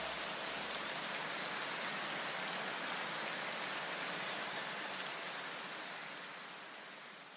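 A steady, even hiss with no beat or tune, fading away over the last two seconds.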